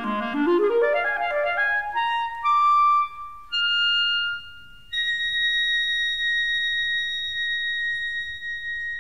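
Solo clarinet running quickly up a scale from its low register, then stepping up through a few longer notes and holding one high note for about four seconds near the end, spanning its wide range from low to high.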